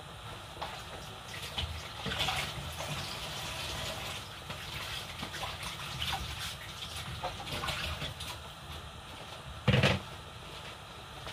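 Thick ogbono soup boiling in a metal pot on the stove, bubbling and popping irregularly. A single loud thump about ten seconds in.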